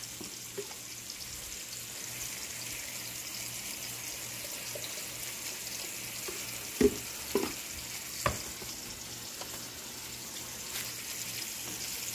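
Chicken searing in a cast-iron skillet on an electric stove at medium heat: a steady, soft sizzle. About seven to eight seconds in come three sharp clinks as the blender jar knocks against a glass jar while pouring.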